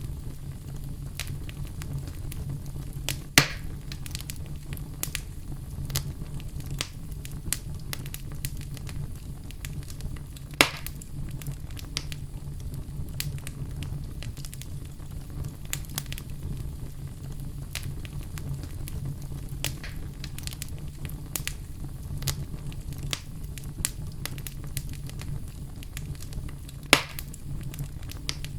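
Wood fire crackling in a fireplace: a steady low rumble of flame under frequent small pops, with three louder snaps, one a few seconds in, one about ten seconds in and one near the end.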